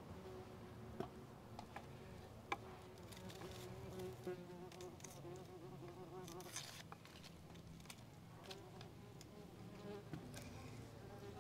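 A flying insect buzzing, its hum wavering in pitch, dropping away for a couple of seconds after the middle and then coming back. A few light clicks of a knife on a wooden cutting board as raw meat is cut.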